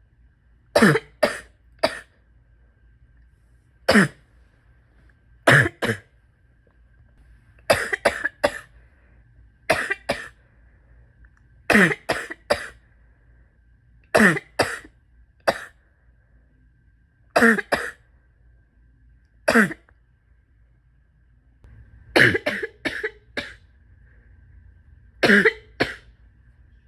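A person's chesty coughing in repeated short bouts of one to four coughs, about every two seconds, from a respiratory illness on top of asthma and chronic bronchitis.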